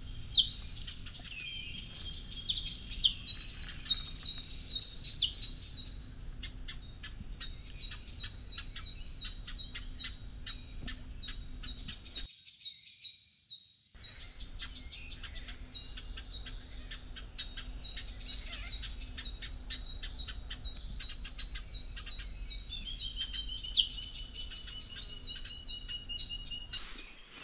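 Birds calling: a long run of short, high notes repeated evenly about two or three times a second, with a lower trill sliding downward near the end.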